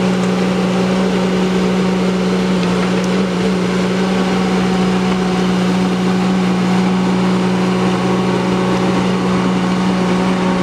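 Ditch Witch SK900 mini skid steer's engine running steadily at working throttle as the loader digs and dumps rocky soil.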